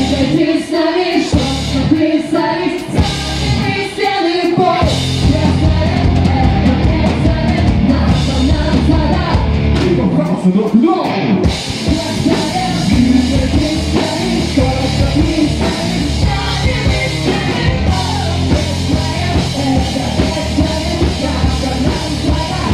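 Live pop-rock cover band playing loudly, with a man and women singing into microphones over electric guitar and a steady, bass-heavy beat.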